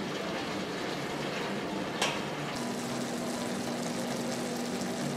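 Pork bulgogi simmering and sizzling in its sauce in a stainless steel pot, with a single metal clink of a utensil against the pot about two seconds in. A steady low tone joins about halfway through.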